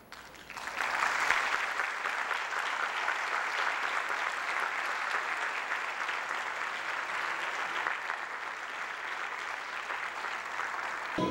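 Theatre audience applauding. The clapping breaks out about half a second in and goes on steadily.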